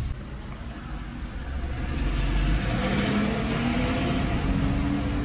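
Heard from inside a car, an oncoming bus passes close alongside. Its engine and tyre noise swell about two seconds in, and an engine tone climbs slowly in pitch.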